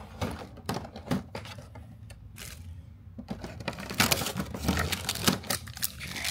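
Small plastic toy figures and packaging being handled: scattered light clicks and taps, then from about four seconds in a dense crinkling of a foil blind-bag wrapper.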